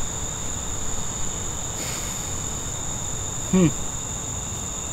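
Crickets trilling in a steady, high-pitched insect chorus, with a man's short murmured "mm" about three and a half seconds in as he eats.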